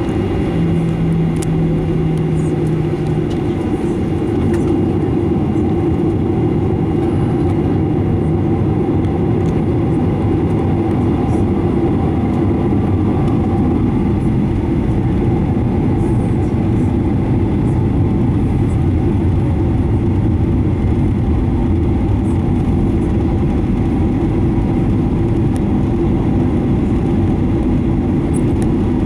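Steady, loud cabin noise inside a Boeing 737-900ER airliner: the low rumble of its CFM56-7B jet engines and the airflow around the fuselage, with a brief low hum in the first few seconds.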